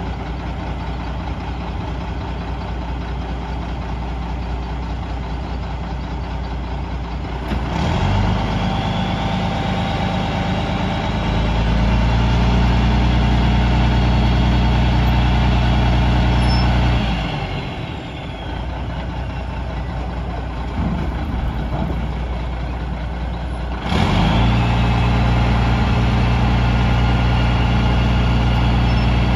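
Mack RD roll-off truck's diesel engine idling, then stepping up to a steady fast idle about seven seconds in to drive the hydraulic hoist as a dumpster is winched up onto the tilted bed. It falls back to idle for several seconds past the middle and speeds up again about five seconds before the end.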